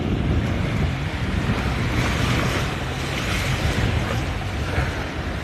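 Wind buffeting the microphone over the steady wash of waves and boat traffic at an inlet, with a louder hiss of water from about two to four seconds in.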